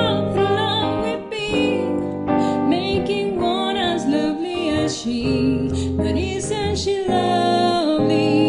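A woman singing a slow, soft song with held, wavering notes over a piano and guitar accompaniment.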